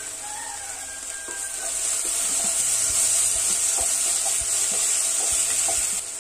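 Chopped onions and crushed green chillies sizzling as they fry in a nonstick pot, stirred with a spatula. The sizzle grows louder about two seconds in and eases just before the end.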